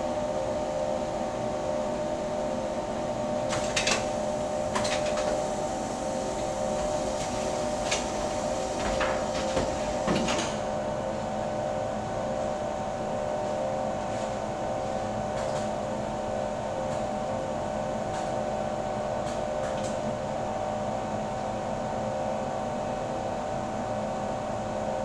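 Steady hum of automated production machinery, several held tones at an even level, with a handful of sharp clicks and clacks in the first ten seconds or so.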